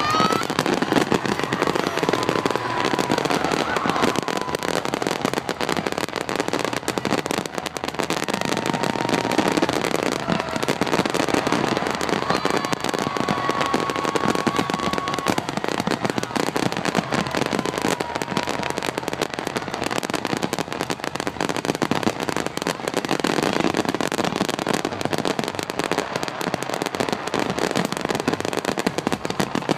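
Fireworks finale barrage: a continuous, dense rush of shell bursts and crackling with no pauses, a few long whistles rising over it.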